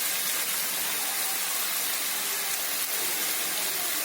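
Sliced onions sizzling steadily in hot oil in a pan, frying towards golden brown.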